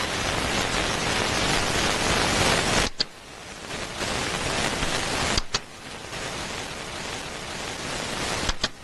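A steady rushing hiss of noise, broken three times by a sudden drop with a sharp click: about three seconds in, past five seconds, and near the end.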